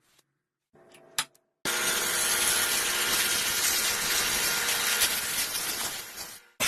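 A woodworking power tool cutting wood: a loud, steady, hissing noise starts abruptly about a second and a half in, after a sharp click, and cuts off suddenly near the end.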